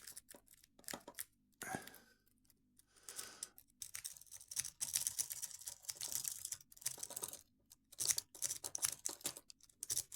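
Triple peak rake scrubbed rapidly in and out of a laminated padlock's keyway: fast metallic scratching and pin clicking in bursts, busiest in the second half, with the lock not yet opening.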